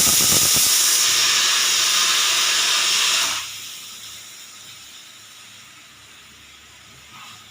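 Pressure cooker whistle blowing: a loud jet of steam hissing out past the weight valve, with a rapid rattle at first. It cuts off sharply about three and a half seconds in, leaving a faint hiss.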